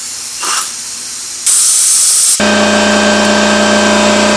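Compressed air hissing as it is blown through a carburetor, with a louder, sharper blast about a second and a half in. Just after that, an air compressor's electric motor starts with a steady hum and keeps running, refilling the tank.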